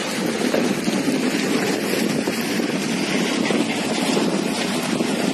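Wind blowing across the phone's microphone: a steady rushing, buffeting noise.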